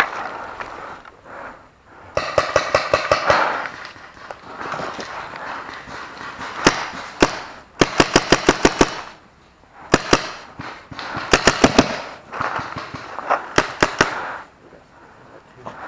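Paintball markers firing in quick strings of pops, several bursts of five to eight shots with single shots in between.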